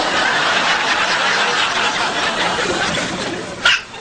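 Breathy, hissing baby laughter lasting about three seconds, then a single sharp hiccup near the end.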